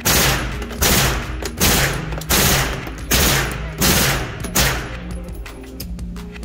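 A suppressed 9mm AR-style carbine firing seven semi-automatic shots at a steady pace of a bit more than one a second, each ringing briefly off the concrete-block walls, the last about four and a half seconds in.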